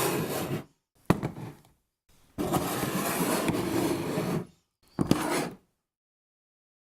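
Hand-made lemonade preparation with a lemon squeezer and a knife: rough scraping and grinding stretches, a sharp knock about a second in, and another short sharp scrape near the end.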